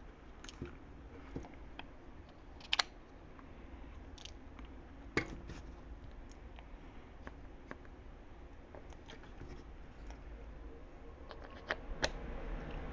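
Light clicks and taps of small toy belt buckles being handled, with a sharp double click about three seconds in and a couple more near the end.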